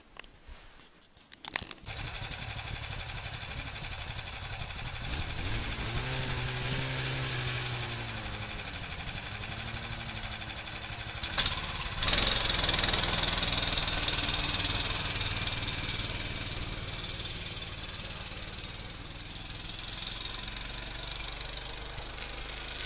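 Snowmobile engine starting about two seconds in and then running, its pitch rising and falling as it is revved; after a break near the middle it runs on steadily and louder.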